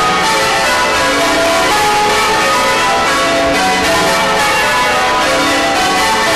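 Many bells ringing together in a dense, continuous peal of overlapping tones.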